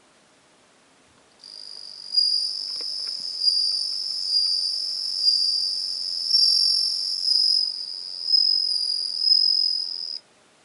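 Japanese bell cricket (suzumushi) singing: a high, ringing trill that starts about a second and a half in, swells in pulses about once a second, and cuts off suddenly shortly before the end.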